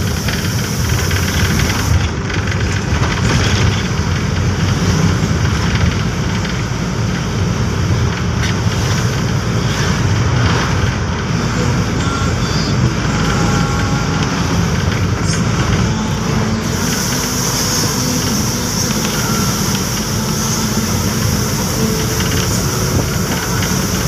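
Steady engine rumble and road noise of a vehicle driving along, heard from on board. A hissing rush grows stronger about two-thirds of the way through.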